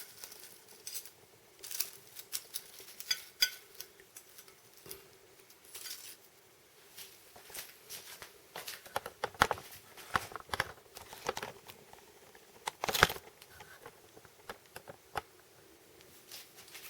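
Crisp, flaky baked phyllo pastry crackling as it is broken or cut open, with scattered sharp clicks that could be a utensil against a plate; the loudest crack comes about 13 seconds in.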